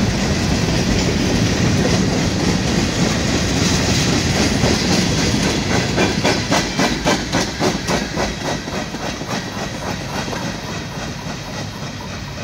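Freight cars (covered hoppers and tank cars) rolling past, with a steady rumble of steel wheels on rail and a run of rhythmic clickety-clack from the wheels crossing rail joints in the middle. The sound fades toward the end as the last cars move away.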